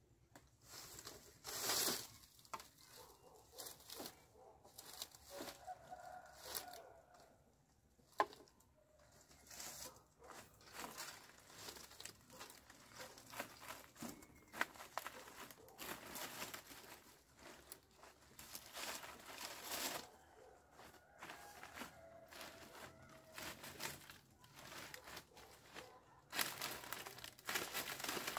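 Irregular rustling and crinkling handling noises, with a sharp knock about eight seconds in and a few short animal calls, likely a chicken clucking.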